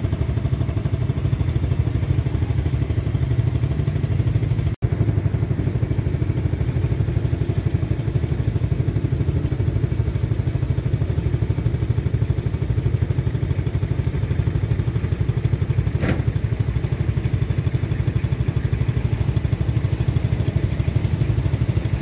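Motorcycle engine running steadily while riding, with a fast, even pulse and no change in pace; the sound drops out for an instant about five seconds in.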